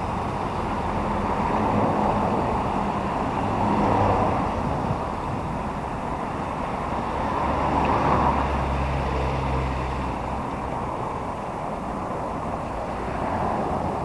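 Street traffic: a steady roar of road noise with several vehicles passing. The loudest pass is about eight seconds in, with a low engine hum for a few seconds.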